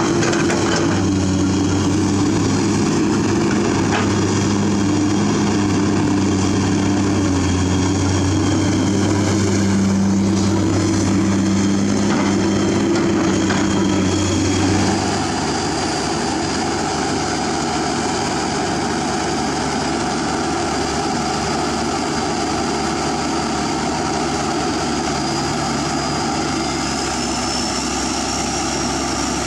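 Komatsu PC200 hydraulic excavator working in river mud, its diesel engine running steadily under digging load. About halfway through, the sound drops a little quieter and changes character, with a thin high whine that rises slowly near the end.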